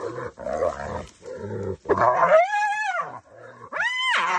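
Spotted hyenas fighting over a carcass: rough, pulsing growls, then two high squealing calls that each rise and fall in pitch, one about two seconds in and one near the end.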